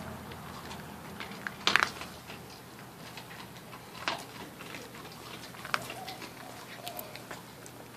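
Puppy eating dry kibble off a concrete floor: a few scattered crunches and clicks, the loudest about two seconds in.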